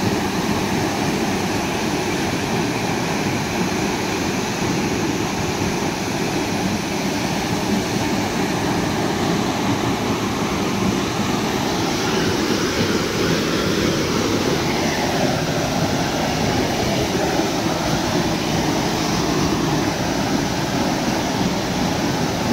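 Rainbow Falls, a very tall waterfall plunging into a rock pool: a steady, loud rushing roar of falling water.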